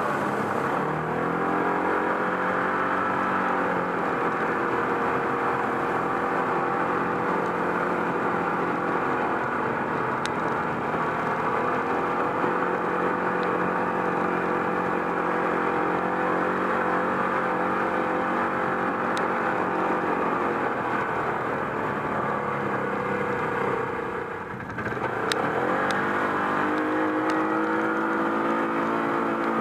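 ATV engine running under load, its pitch rising and settling as the throttle changes. Near the end it drops briefly, then climbs again. A few sharp clicks sound over it.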